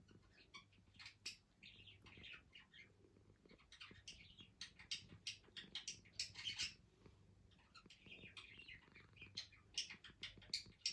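Faint, steady purring of a domestic cat being petted, with many short high-pitched ticks and chirps over it.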